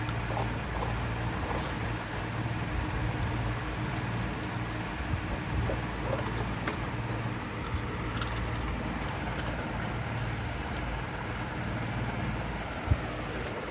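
A puppy crunching and licking ice cubes in a stainless steel bowl, heard as faint scattered clicks over a steady low hum.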